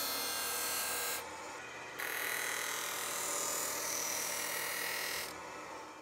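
Hockey skate blade being sharpened on a skate-sharpening grinding wheel: a steady high grinding that drops away for under a second about a second in, then again near the end.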